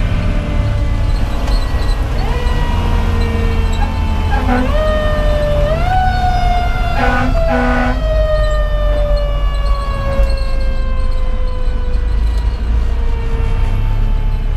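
Federal Q2B mechanical siren winding up in three steps, then coasting down in one long falling wail. Two short Grover air horn blasts come about seven seconds in. The fire engine's Detroit Series 60 diesel and road noise run underneath, heard from inside the cab.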